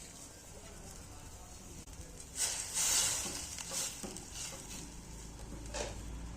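Food sizzling in hot oil in a pan as it is stirred, with a loud burst of hissing about two and a half seconds in and several shorter bursts after.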